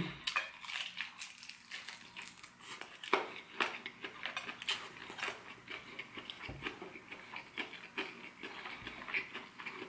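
Chewing crispy fried chicken and pulling the meat off the bone by hand: faint, irregular crackles and small clicks from the crunchy crust, with one sharper click about three seconds in.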